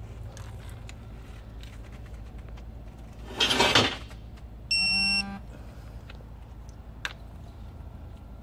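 Digital torque wrench giving one electronic beep, about half a second long, as a rocker-arm bolt is pulled up to its 44 ft-lb setting: the signal that target torque is reached. Just before the beep comes a brief loud rasp, and a single click follows a couple of seconds later.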